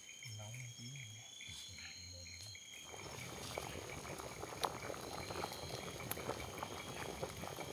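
Faint bubbling and crackle of a pot of crab and porridge at the boil, growing busier about three seconds in, under a steady high chorus of night insects and frogs.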